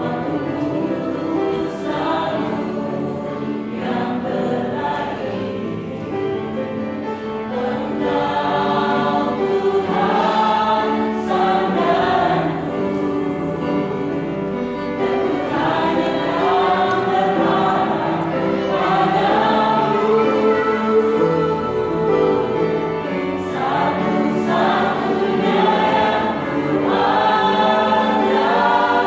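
Church choir singing a Christian praise song, several voices together in continuous sung phrases.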